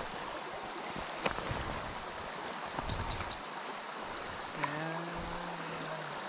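Stream water rushing over a rocky bed as a steady wash, with a few faint clicks and a short low voice-like hum about three quarters of the way through.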